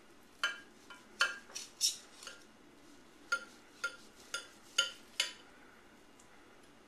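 Carving knife and fork clinking against a ceramic platter while slicing roast pork: about ten short, ringing clinks in two runs, roughly two a second, stopping about five seconds in.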